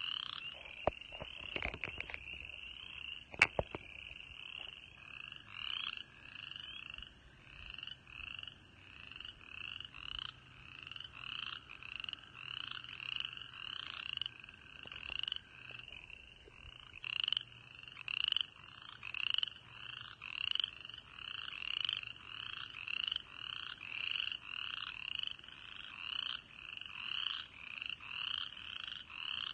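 Spring frog chorus: many frogs calling at once, short rising peeps repeating steadily with fainter calls beneath. A few sharp clicks in the first few seconds, the loudest about three seconds in.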